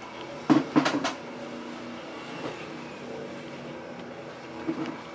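A steady mechanical hum with a few sharp, loud thumps about half a second to a second in and a softer run of knocks near the end, made while a large mound of bread dough is handled out of a plastic tub.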